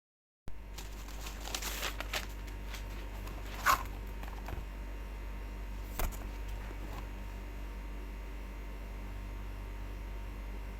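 Smartphone retail box and packaging being handled: a few short rustles and clicks, then two sharper clicks, over a steady low hum.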